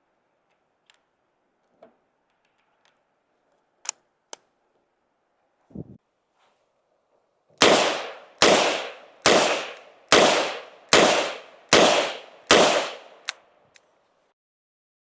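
Ruger GP100 .357 revolver fired seven times in quick succession, a shot about every 0.8 seconds. Before the shots there are a few light metallic clicks from handling the gun.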